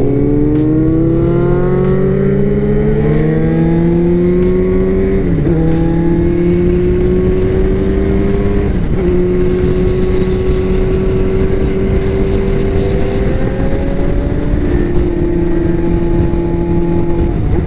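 Yamaha R1's inline-four engine under way, its pitch climbing as it accelerates. The pitch dips sharply twice, about five and nine seconds in, at the gear changes, then holds nearly steady, with wind rushing over the microphone.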